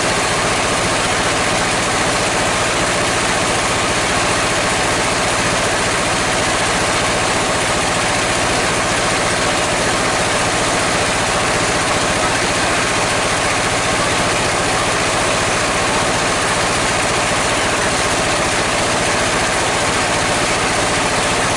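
Sawmill machinery running steadily with no log in the cut: a loud, even drone with a few steady tones, unchanging throughout.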